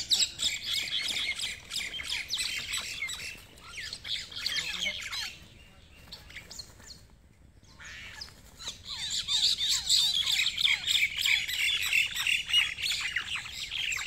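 Common mynas fighting on the ground, giving a dense run of rapid harsh squawks. The squawking drops away for about three seconds near the middle, then starts again just as dense.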